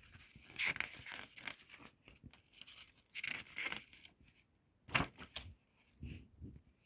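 Paper leaflets rustling in short bursts as they are handled and pulled from an open DVD case, with one sharp click about five seconds in.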